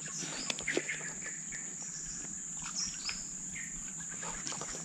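Steady high-pitched insect drone, with short bird chirps now and then and a few faint clicks.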